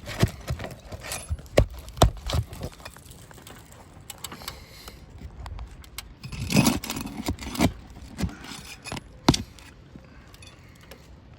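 Asphalt roof shingles being worked loose and lifted: scattered sharp clicks and cracks with scraping and two short rustling stretches. The brittle shingles crack as they are unsealed, a sign they are in bad shape.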